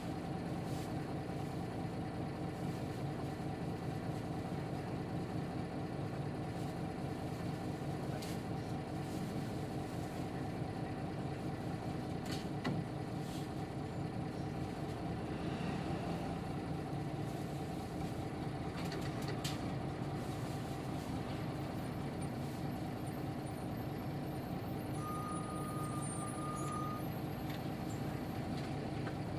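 Diesel engine of a Nissan Diesel KK-RM250GAN city bus running steadily at an even pitch, heard from inside the bus. A few faint clicks, and a short high beep lasting about two seconds near the end.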